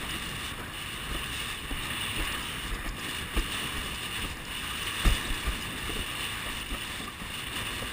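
Steady rush of wind and water past a windsurf board sailing through choppy water, with the wind buffeting the boom-mounted camera's microphone. A few short, dull knocks come through, the loudest about five seconds in.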